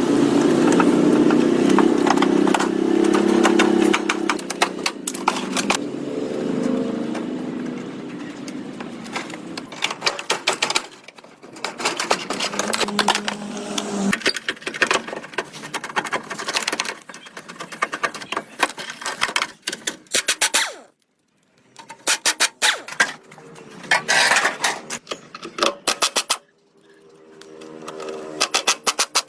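A machine hums steadily for the first few seconds and fades away. After it comes a long run of sharp clicks and knocks, broken by a short silence about three quarters of the way through.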